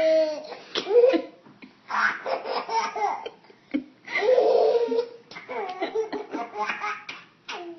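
A baby laughing in several bursts, with short pauses between them.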